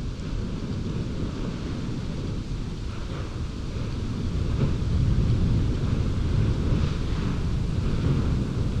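Wind buffeting the microphone, a steady low rumbling rush that grows louder about halfway through.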